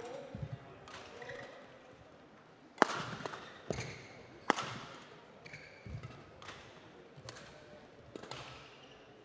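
Badminton rally: rackets striking a shuttlecock in a series of sharp cracks, the three loudest a little under a second apart about three seconds in, with fainter hits before and after.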